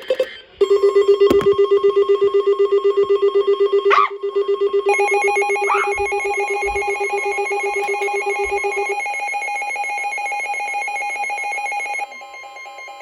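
Emergency alert receivers sounding their alarm tones at the start of a new alert: rapidly pulsing electronic beeps in several steady pitches, a lower one that stops about nine seconds in and a higher one that joins about five seconds in, with most of it cutting off about twelve seconds in.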